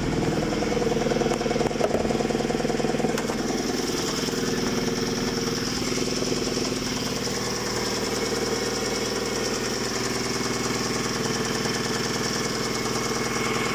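Hyundai/Kia G4GC 2.0-litre four-cylinder petrol engine running at idle with a steady knock (стук). The knock began suddenly under acceleration for no clear reason, and the engine otherwise runs evenly without vibration.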